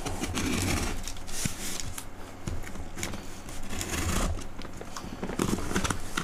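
A Ka-Bar kukri machete blade slicing through packing tape and scraping along a cardboard box, with irregular scraping strokes and cardboard rustling as the flaps are pulled open near the end.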